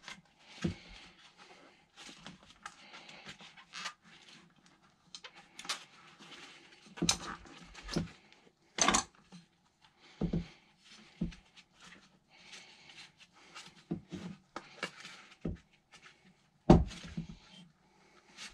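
An 8.5-inch scooter tyre being worked off its wheel rim by gloved hands: irregular rubber scraping and rubbing, with scattered knocks of the wheel being handled, the loudest a sharp knock near the end.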